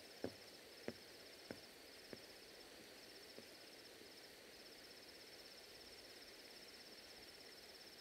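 Faint night ambience of crickets chirping in steady pulsed trains. A few faint taps come in the first few seconds, each weaker than the last.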